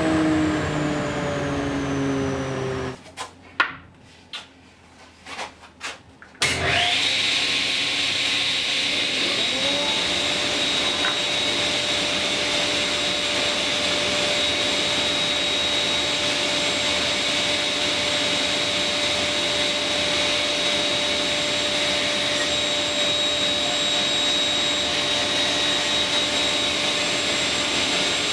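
A workshop motor spins down with a falling whine. After a few seconds of quiet with a few clicks, a workshop dust-extraction vacuum starts up and runs steadily with a high whine.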